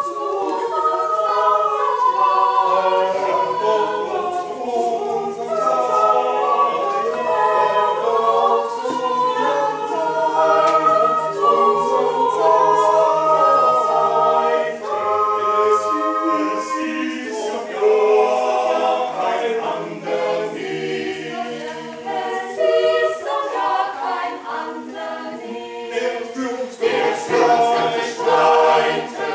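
Mixed choir of men and women singing a cappella in several parts, mostly long held chords, turning shorter and choppier near the end.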